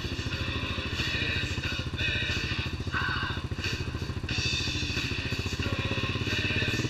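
ATV engines idling steadily, heard close up from the seat of one of the machines.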